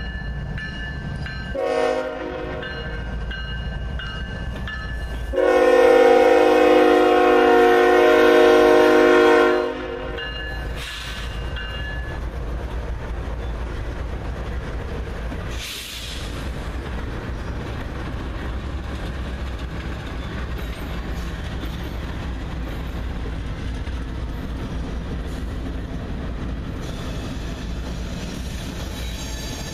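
BNSF diesel locomotives sounding their horn at a grade crossing: a brief blast, then a long blast of about four seconds. Then the steady rumble of the engines and wheels as the locomotives roll past.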